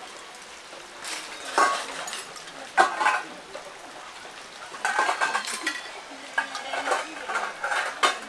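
Metal utensils clinking and scraping against bowls and pots, in several spells of clatter, the longest in the second half.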